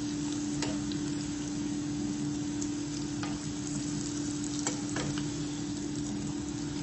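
Samosas deep-frying in hot oil: a steady sizzle with a few light clicks of a slotted steel spoon against the pan as they are turned. A steady low hum runs beneath.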